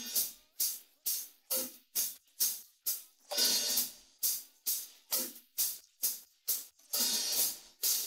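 Isolated cymbal track from a rock drum recording: cymbals struck in a steady beat about two to three times a second. A longer, louder cymbal wash rings out about three seconds in and again near the end.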